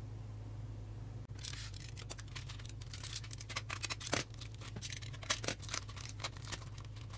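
Plastic bubble-wrap bag crinkling and rustling in irregular crackles as a circuit board is pulled out of it, over a steady low hum.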